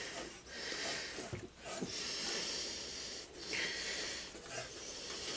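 A person breathing hard through the nose, a run of long breaths each about a second long.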